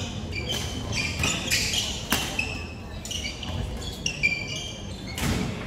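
Sports shoes squeaking on an indoor badminton court floor in many short, high chirps as the players move. There are a couple of sharp racket hits on the shuttlecock, about two seconds in and near the end.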